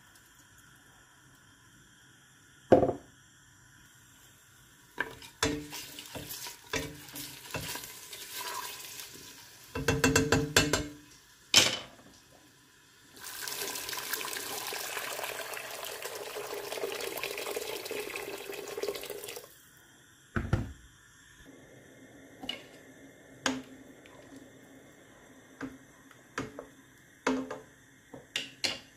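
Kitchen work: scattered knocks and clatter of pots and utensils, with water running steadily for about six seconds in the middle.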